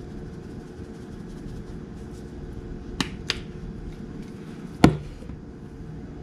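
Spice containers handled at a kitchen stove: two light clicks about three seconds in and a sharper knock near five seconds, over a steady low hum.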